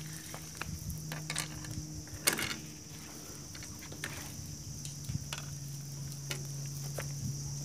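Insects buzzing steadily in a high band over a low steady hum, with scattered short clicks and knocks, the loudest about two seconds in.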